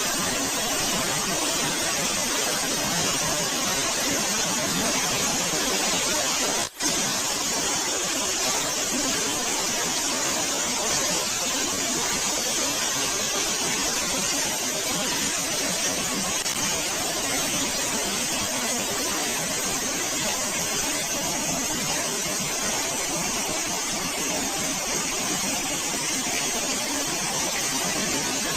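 Waterfall on the Guadalmedina river: a steady rush of falling water, broken once by a split-second dropout about seven seconds in.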